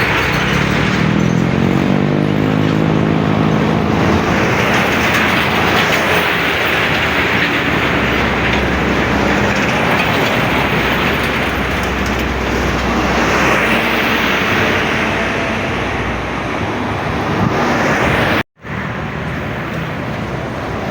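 Heavy road traffic: big diesel buses and other vehicles running past. An engine's pitch rises and then holds in the first few seconds as a vehicle pulls away, and the tyre and engine noise swells twice as vehicles pass. The sound drops out for an instant near the end.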